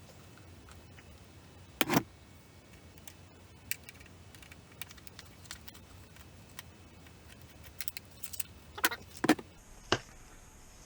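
Scattered metallic clicks and clinks of a screwdriver and small screws as the license plate light's screws are undone, with one loud clack about two seconds in and a few more near the end.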